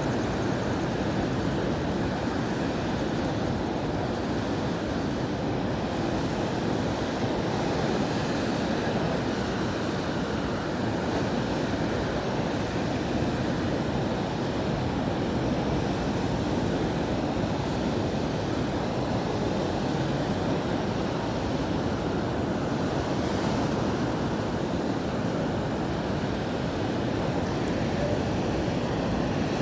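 Ocean surf washing onto the beach as a steady, continuous rush, with no single wave standing out.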